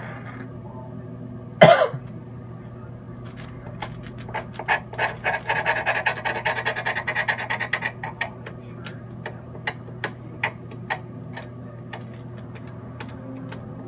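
One short cough, then several seconds of quick small clicks and scratching as leftover keef is scraped together on parchment paper, over a steady low hum.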